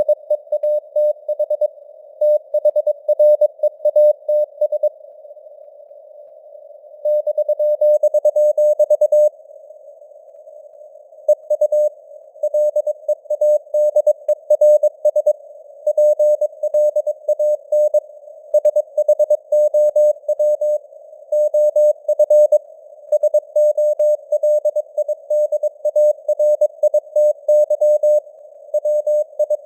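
Morse code (CW) news text sent at 22 words per minute: a single-pitch tone keyed into dots and dashes over a narrow band of hiss that simulates radio noise, with the signal strength fading up and down (QSB). The keying pauses twice for about two seconds, about five and ten seconds in.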